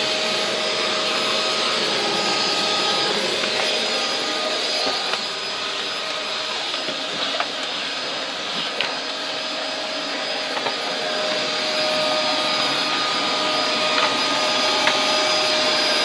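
Hoover Turbo Power vacuum cleaner running steadily with a high motor whine over a rushing hiss while vacuuming up dried muddy footprints. The pitch holds steady, dips slightly in loudness in the middle, and small clicks come now and then.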